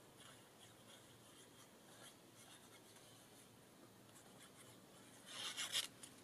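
Faint scratching of a fine-tipped liquid glue bottle drawn over the back of a paper die cut, with small paper ticks. A brief louder rustle of paper comes near the end as the die cut is picked up and turned over.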